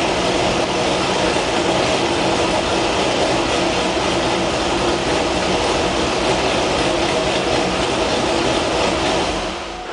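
2001 Corvette Z06's LS6 V8 running steadily through a titanium cat-back exhaust, with long-tube headers, no catalytic converters and an aftermarket cam. The sound dies away near the end.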